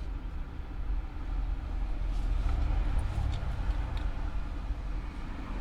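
Steady low rumble of outdoor background noise, with a faint hiss above it, swelling slightly midway.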